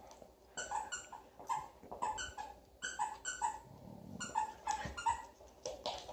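Siberian husky puppy yipping and barking in play, short high-pitched yaps in quick clusters of two or three, repeated every second or so.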